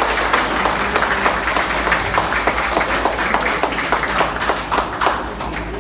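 A roomful of people applauding: many hands clapping together, with some single sharper claps standing out.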